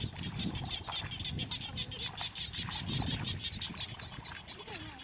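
Animal chorus of rapid, evenly pulsing high chirps, many a second, over a low rumbling noise, with a short gliding call near the end.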